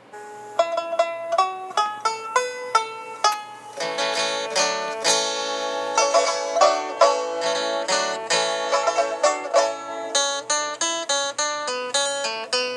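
Background music: fast plucked-string picking, filling out with more notes about four seconds in.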